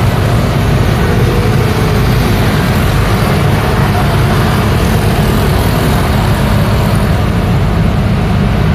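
Street traffic: a steady stream of motor scooters and cars passing, their engines and tyres making a continuous low rumble with no separate event standing out.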